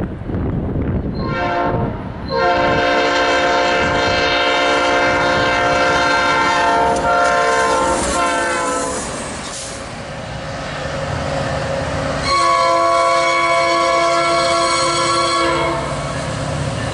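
Nathan Airchime P5 five-chime locomotive horn sounding: a short toot about a second in, a long blast of about seven seconds whose chord slips lower near its end, then another blast of about three seconds. The steady clatter and rumble of the train on the rails continues underneath.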